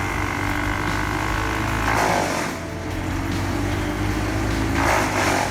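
Vermeer BC700XL wood chipper running steadily, with two louder rushes of chipping noise as wood goes through it, about two seconds in and again near the end.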